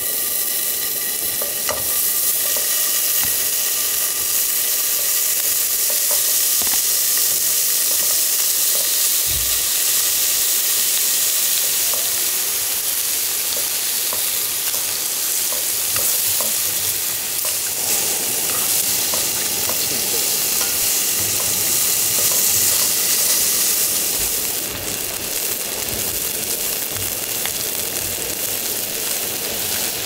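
Food frying in a hot pan: a loud, steady sizzling hiss with occasional light clicks.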